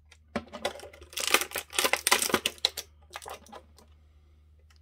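Plastic toy packaging crinkling and clicking as an action figure's small plastic blaster is taken out of it: a run of quick crackles for about three seconds, loudest in the middle, tailing off to a few light ticks.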